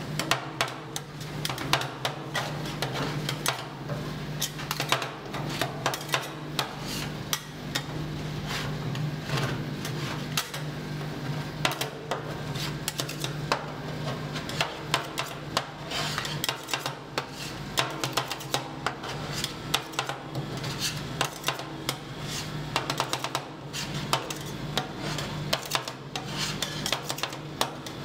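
Two metal spatulas chopping and scraping ice cream on a frozen steel plate: a fast, irregular clatter of metal taps over a steady low hum.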